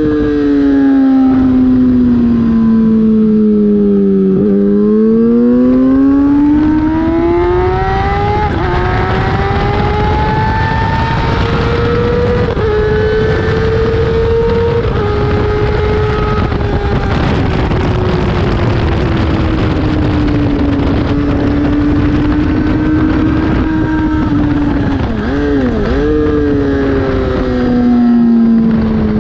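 Race motorcycle's engine under full race load, heard from on the bike with rushing noise over it. The engine note falls as the bike slows, climbs again, holds high with small shifts and a slow sag, then dips with a quick blip near the end as it slows again.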